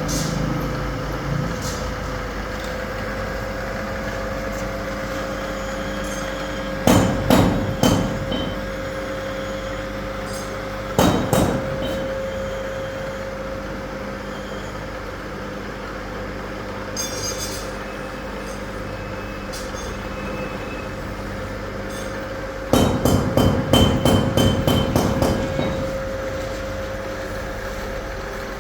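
Milling machine running steadily with a fixed motor hum, broken by bursts of rapid clattering knocks: a short run about a quarter of the way in, a brief one a little later, and a longer rapid run near the end.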